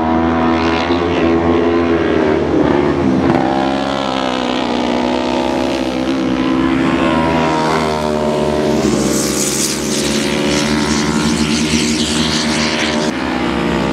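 Autocross buggy engines revving hard, their pitch rising and falling as the cars accelerate and lift through the corners on a dirt track. A rushing hiss joins about nine seconds in and fades out near the end.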